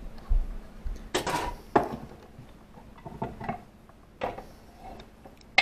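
Dishes and utensils clattering: several separate knocks and scrapes, the loudest about a second in and near the end.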